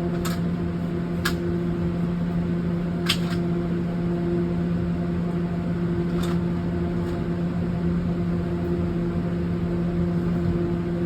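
Steady machine hum holding two low tones, with a few faint clicks in the first six seconds; no gunshots.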